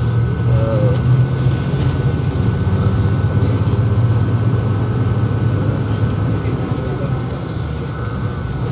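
City bus in motion, heard from inside the cabin: a steady low engine drone and road noise, with a thin steady whine above it.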